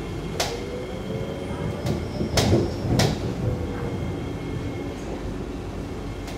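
Cabin sound of a Kawasaki/CRRC Sifang C151B metro train running into a station: a steady low rumble of wheels on rail and a faint electric motor whine that drifts in pitch. Four sharp clacks come through, the loudest two about two and a half and three seconds in.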